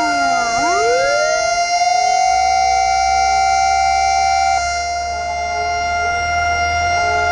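Two sirens sounding together. One holds a steady high tone throughout. The other falls to a low pitch, sweeps back up to hold just above the first, then stops a little past halfway. A low rumble comes in about two seconds in.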